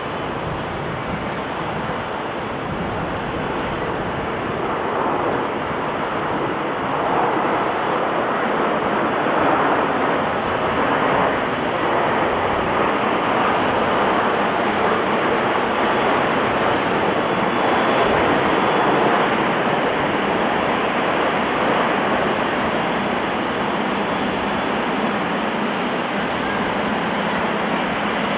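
Airbus A340-300 jet engines: a steady rushing jet noise that grows louder a few seconds in and stays loud as the airliner comes in on a high-speed approach without flaps and touches down.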